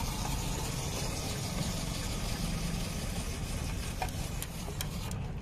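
A steady low engine rumble, with a few sharp clicks about four to five seconds in.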